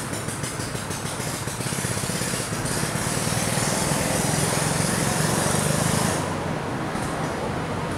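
Steady outdoor background noise, a low hum under a high hiss. It grows louder for a few seconds, then the hiss drops away suddenly about six seconds in.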